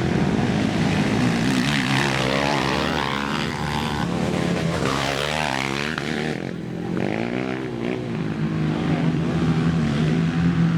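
ATV engines racing, revving up and down in pitch as they pass by.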